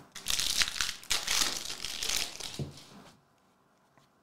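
A trading-card pack wrapper being torn open and crinkled in the hands, a rustling crackle lasting about three seconds.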